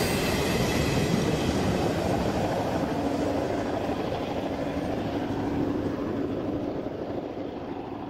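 A freight train's hopper wagons rolling away on the rails, their wheel noise fading steadily into the distance, with a faint steady tone through the middle.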